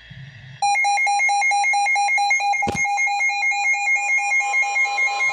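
Canadian Alert Ready emergency attention signal: a loud electronic alert tone of rapidly alternating high pitches, starting about half a second in and repeating steadily. It signals an incoming broadcast emergency alert, here an Environment Canada severe thunderstorm warning. A single short click sounds about two and a half seconds in.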